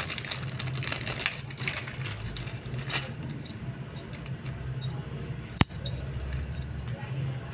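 Small metal sprockets from a Sagmit 11-speed bicycle cassette clinking against each other as they are handled, with plastic bag packaging crinkling in the first couple of seconds. Two sharper clinks stand out, about three seconds in and again between five and six seconds.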